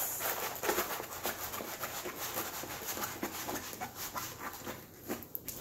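Plastic-covered diamond painting canvas rustling and crinkling as it is rolled up by hand against the table, dying down near the end.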